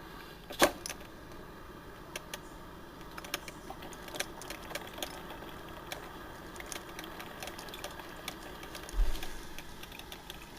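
Black & Decker thermal carafe drip coffee maker brewing: irregular small pops and clicks of the heating water over a steady low hiss, with one sharp click about half a second in and a dull thump near the end.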